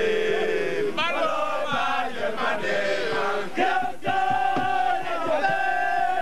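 Many men's voices chanting a devotional song together, with long held notes that slide between pitches and overlap one another.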